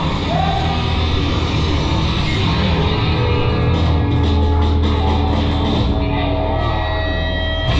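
Loud rock music with distorted guitar and drums.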